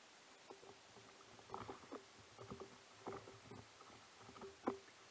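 Small waves slapping and knocking against an inflatable canoe's hull: irregular soft knocks in loose clusters, each with a brief hollow ring, the loudest one near the end.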